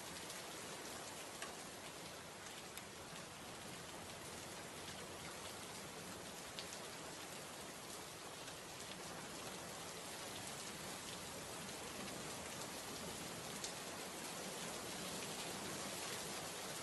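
Heavy rain falling steadily onto a surface: a dense, even hiss with scattered sharper drop ticks.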